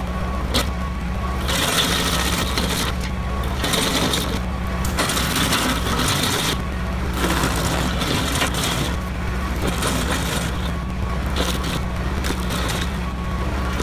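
Woodland Mills WG24 PTO stump grinder, its 24-inch cutter wheel driven off a compact tractor's PTO, chewing into a stump in surges every second or two with a spray of wood chips. The tractor's engine drones steadily underneath.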